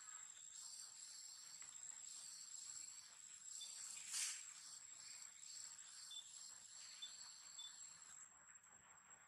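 Faint, steady high-pitched insect chorus, crickets or cicadas, pulsing slightly, with one brief louder rushing sound about four seconds in.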